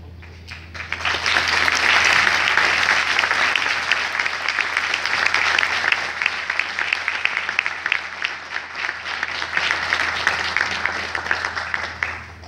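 Audience applauding in an auditorium. It swells in about a second in, is loudest early on, then carries on a little softer and stops abruptly near the end.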